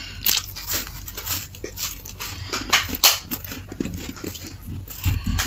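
Freezer frost being bitten and chewed close to the mouth: a run of uneven, crisp crunches.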